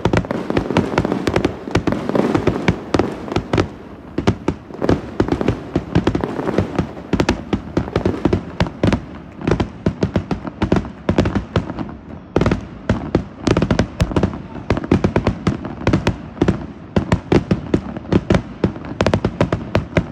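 Fireworks going off in a rapid, continuous string of sharp pops, bangs and crackles, many per second, with no pause.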